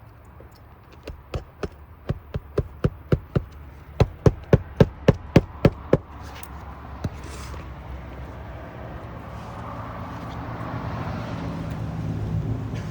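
Hand hammer driving roofing nails into a replacement asphalt shingle: a quick run of strikes, about three or four a second for some five seconds, getting harder toward the end, then one last blow. A low engine rumble builds during the last few seconds.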